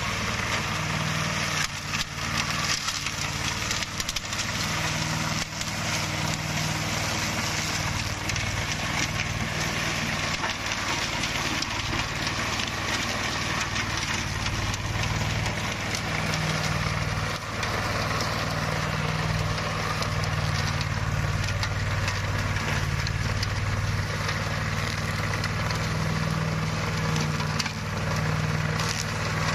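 Engine-driven flail mower running steadily under load, its engine holding a constant low note while the spinning flail shaft chops through dry grass with a dense noisy rush and scattered rattling hits.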